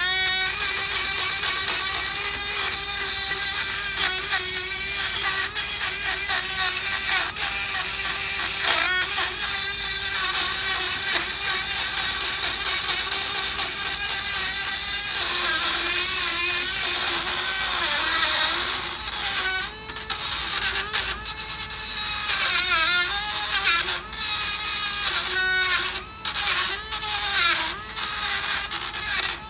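Dremel rotary tool whining at high speed, grinding built-up rust off the brake caliper bracket where the pad hardware sits. Its pitch wavers and dips as it bears on the metal, more so in the last third, with a few brief let-offs.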